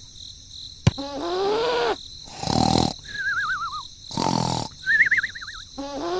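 Cartoon-style sound effects in quick succession: rising pitch glides, two short noisy bursts, and two wavering whistle tones, one falling and one held.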